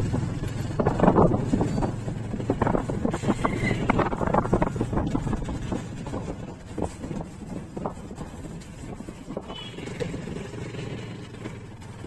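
Motorcycle riding noise: the engine runs with a steady low rumble and irregular rough noise as the bike is ridden along a street in traffic. It grows quieter over the second half.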